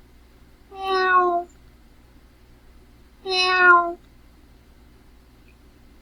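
Domestic cat meowing twice, about two and a half seconds apart. Each meow is under a second long and dips slightly in pitch at the end.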